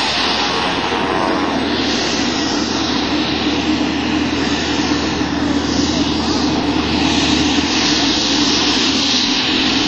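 Pilatus PC-12's single Pratt & Whitney PT6A turboprop running at taxi power as the aircraft taxis by: a steady propeller drone with a turbine hiss above it that swells and eases every second or two.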